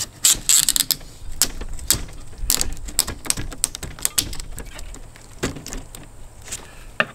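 Thin metal scraper prying a plastic glazing bead out of an aluminum window frame: irregular clicks and scrapes, with a longer scrape about half a second in.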